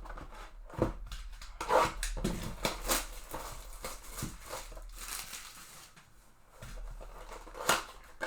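Trading cards and packs being handled by hand: 2022 Topps Chrome cards slid and flipped, with irregular taps, clicks and short rustles, and a couple of sharper snaps, the loudest nearly two seconds in and near the end.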